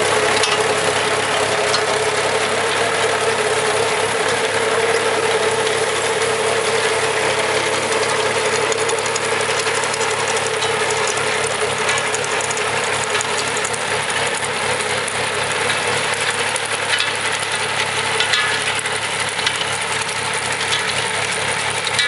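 4U-650 potato harvester working: a continuous mechanical clatter and rattle of its moving parts over a steady hum.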